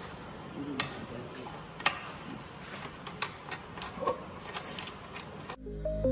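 Scattered sharp clicks and knocks, about six, from hand work on a tractor wheel and tyre, over a faint background. Electronic music starts abruptly near the end.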